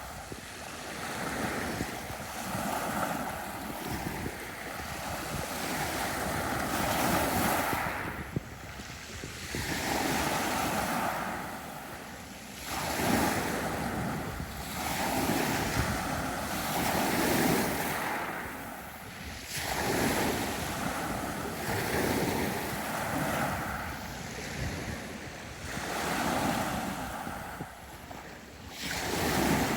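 Sea waves breaking and washing up a beach, the surf swelling and falling back every two seconds or so.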